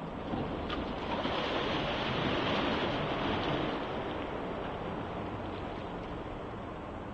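Splashing water from a swimmer's backstroke start: a sharp slap under a second in, then a rush of churning water that is loudest over the next few seconds and gradually eases as he swims off.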